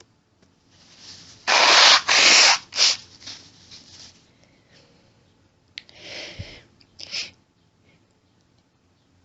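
A woman blowing her nose hard into a tissue, two long blows about a second and a half in and a shorter one just after, then a few quieter sniffs and snorts. These are the nose clearings of an allergy attack.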